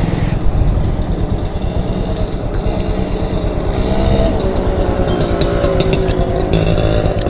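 Motorcycle engine idling steadily, a low even running hum with a fainter wavering tone above it.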